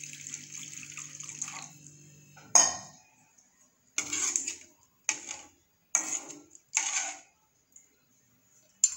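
Water pouring into a metal pan of sautéed banana-stem pieces, the pour tapering off in the first couple of seconds. Then a single clank and four short scrapes of a utensil against the pan about a second apart.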